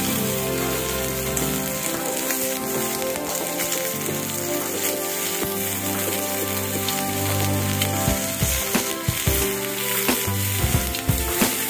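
Slices of venison and beef sizzling on an iron grill plate over charcoal, a steady hiss. In the last few seconds, metal tongs knock and clack against the plate as the meat is turned.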